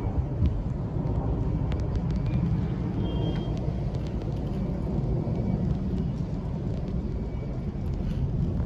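Airbus A330-300 jet airliner climbing out after takeoff, its engines a steady low rumble.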